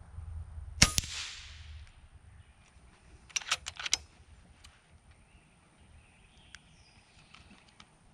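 FX Impact .30-calibre PCP air rifle firing a single shot: a sharp crack, then a second crack a split second later as the pellet strikes the steel scrap-metal target. About two and a half seconds later, a quick run of about five metallic clicks as the side lever is cycled to chamber the next pellet.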